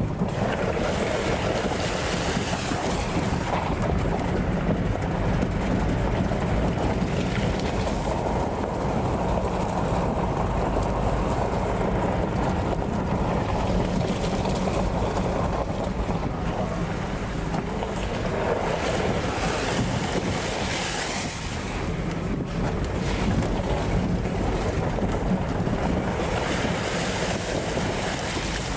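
Steady rumble of a vehicle on the move, road and engine noise heard from inside the cabin, mixed with wind noise on the microphone.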